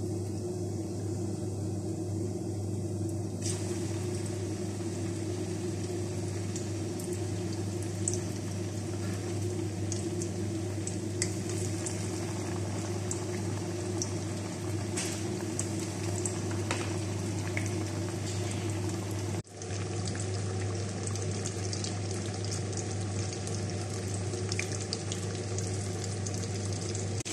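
Oatmeal-coated chicken breast deep-frying in hot oil in a stainless steel pan: a steady bubbling sizzle with scattered pops and crackles over a low steady hum. The sound drops out for an instant about two-thirds of the way through.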